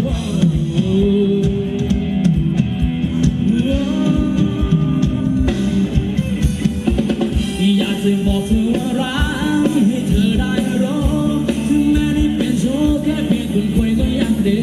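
Live Thai ramwong band music played loud through a PA: a singer's melody over a band with a steady drumbeat.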